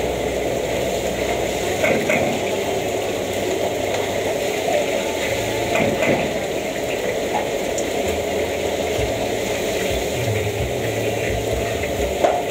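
Oil frying in a large wok over a gas burner: a steady bubbling sizzle. A few sharp metal clinks come from the ladle and strainer against the wok, about two, six and twelve seconds in.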